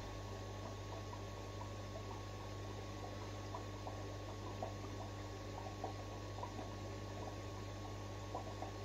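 Aquarium filter running: a steady low hum with faint, irregular bubbling and dripping of water.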